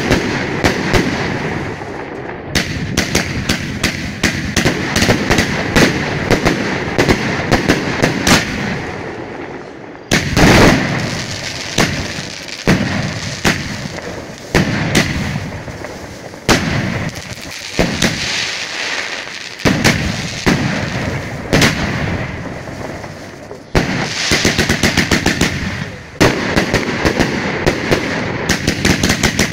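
Fireworks going off in quick succession: rapid shots and crackling bursts, with a louder boom every few seconds.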